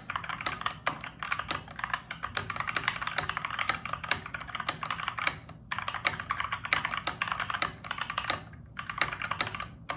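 Fast typing on a mechanical keyboard with Gateron Brown tactile switches: a dense run of key clicks with brief pauses a little past halfway and again near the end.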